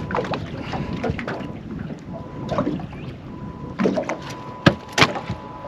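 Scuffing and knocking in a small fishing boat while a freshly caught barramundi is handled, with two sharp knocks about a second apart near the end; a faint steady high tone runs underneath.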